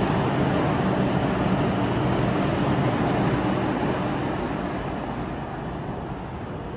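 New York City subway train moving through the station, its steady running noise of wheels on rails holding for about four seconds and then fading gradually as the train moves away.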